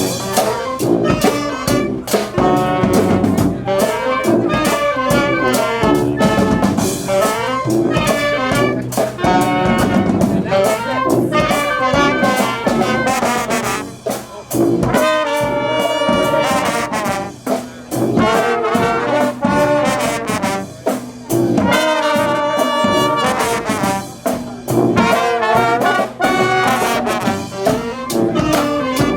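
Live brass marching band playing a tune, with trumpets and trombones over drums that keep a steady beat.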